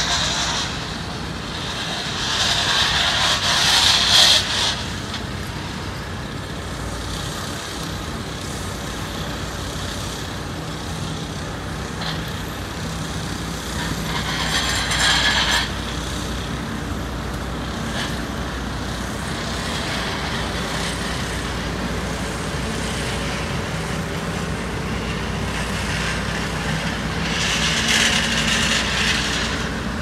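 Diesel engines of road rollers running steadily as they compact fresh asphalt. A louder hissing surge comes three times: a few seconds in, about halfway through, and near the end.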